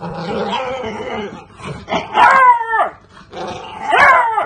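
Beagle puppy baying: a long, rough, growly call, then two loud drawn-out howling bays that drop in pitch, about two and four seconds in.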